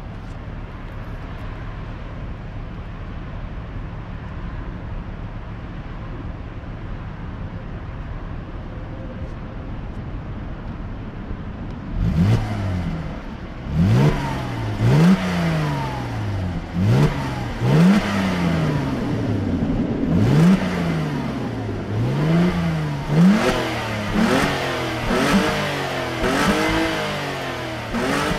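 Audi A4 B5's 2.4-litre 30-valve V6 breathing through a Remus aftermarket exhaust, heard at the tailpipe: it idles steadily, then about twelve seconds in it is revved in a string of short blips, each rising and falling back, coming quicker toward the end.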